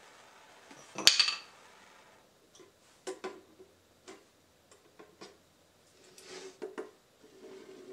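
A plastic snowskate blank and a metal square being handled: a sharp clatter about a second in, then scattered light clicks and taps, with a short scrape near the end.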